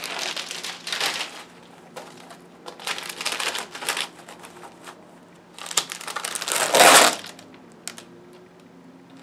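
Plastic and card packaging of an iron-on rhinestone transfer crinkling and rustling in bursts as the transfer sheet is handled and slid out. The longest, loudest crinkle comes about six and a half seconds in.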